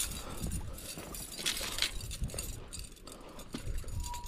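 Scattered light clinks and knocks over a low wind rumble on the microphone.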